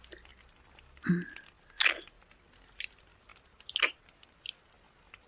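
Close-up ASMR mouth sounds: soft wet kisses and nibbling smacks at the ear, a few separate ones about a second apart.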